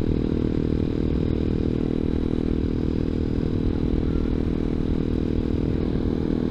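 ZS190 Grom-clone motorcycle's engine running steadily at cruising speed, its pitch held level, over a rough rumble of wind and road noise.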